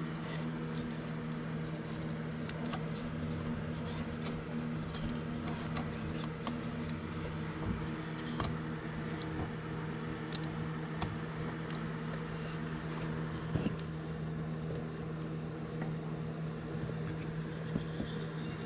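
A steady low mechanical hum with several overtones, with scattered light clicks and knocks of hand work on the fan belt and its pulleys, the sharpest about 13 seconds in.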